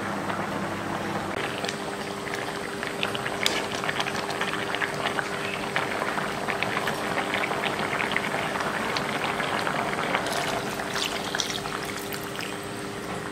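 Potato curry in coconut-milk gravy simmering in a pan, a dense crackle of small bubbles bursting, over a faint steady hum. Near the end, thick coconut milk is poured into the bubbling curry.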